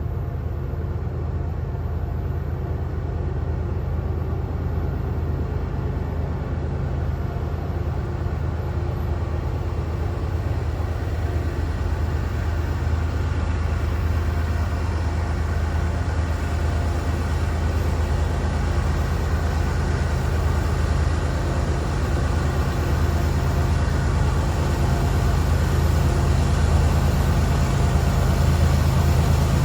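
Diesel freight locomotives working hard up a grade at the head of a heavy train, a steady low engine drone that grows louder as they come closer.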